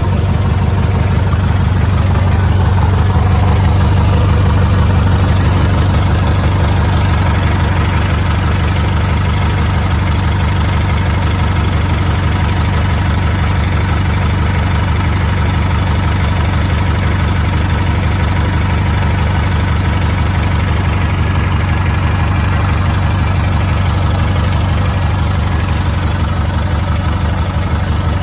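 Craftsman GT18 garden tractor engine running steadily at idle, being warmed up to stir the oil before an oil change.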